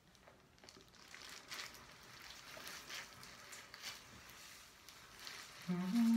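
Gloved hands rubbing hair bleach through hair: a soft, irregular rustling of glove on wet hair and towel. A short vocal sound, like a hum, comes near the end.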